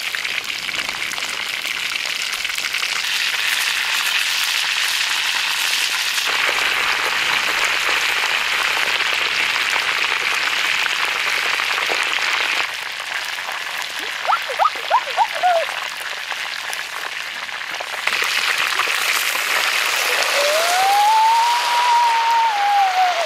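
Whole ducks deep-frying in a wok of hot oil, the oil sizzling and crackling with a dense patter of pops. The sizzle drops off for a few seconds about halfway through, with a few short pitched sounds, then comes back; near the end a single drawn-out tone rises and falls.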